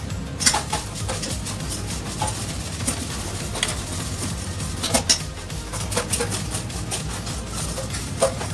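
Chef's knife knocking and clicking against a plastic cutting board while fish is filleted, in a handful of sharp, separate knocks, the loudest about half a second in and about five seconds in.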